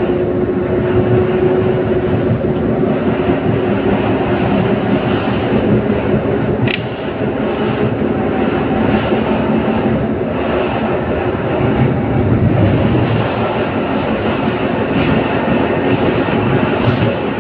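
LVS-86K tram in motion, heard through an open window: steady running noise of the car on the rails. A whine at the start fades out within a couple of seconds, and a short sharp click comes about seven seconds in.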